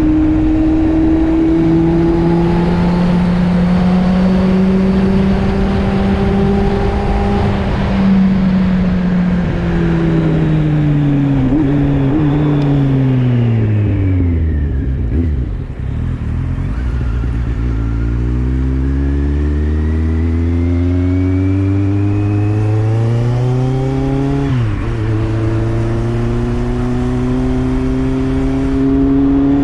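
Kawasaki Z750's inline-four engine with an Arrow slip-on exhaust, running under way. The revs hold steady, fall away as it slows to a low point around the middle, then climb again as it accelerates, with a quick gear change about three-quarters through.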